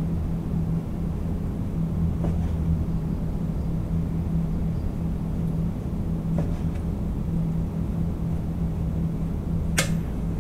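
A chef's knife slicing through squid tentacle and knocking down onto a plastic cutting board: a few sparse cuts, the loudest near the end, over a steady low mechanical hum.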